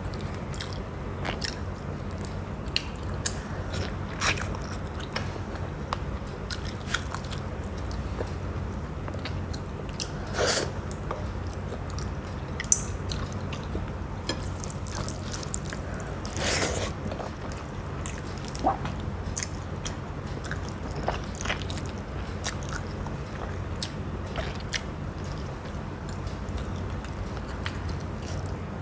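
Close-miked eating of fish curry and fried fish with rice: chewing and crunching with scattered sharp clicks, two louder crunches about ten and sixteen seconds in, over a steady low hum.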